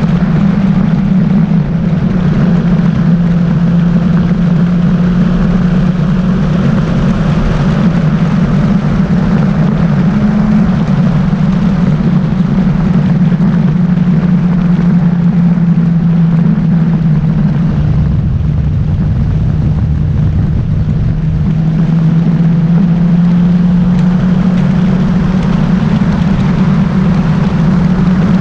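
Motorcycle engine running steadily at road speed, its note dipping slightly and recovering partway through, with a steady rush of wind noise.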